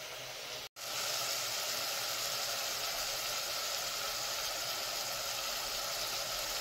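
Grated carrot, onion and pepper frying in a little oil in an enamel pot, a steady sizzling hiss that starts about a second in.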